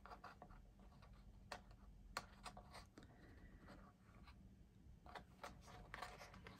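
Faint small clicks and light handling as a metal brad is fitted through mat-board pieces and its prongs opened at the back.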